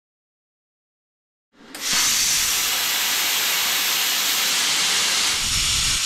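Silence for about the first second and a half, then a plasma cutter cutting steel plate: a steady hiss from the torch's air arc.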